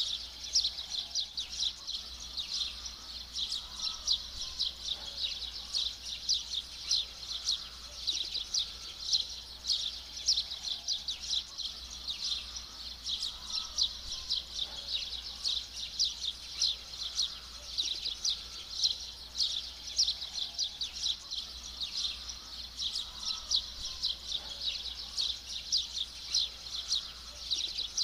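A dense, unbroken chorus of quick, high chirps from many small birds.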